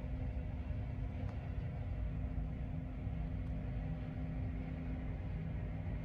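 Farm tractor's diesel engine running steadily, heard from inside its cab: an even low rumble with a constant hum.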